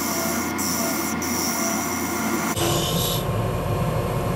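Lathe running while a hand tool turns down an ebonite rod: a steady whirr with a hiss over it. About two and a half seconds in the sound changes abruptly to a lower rumble.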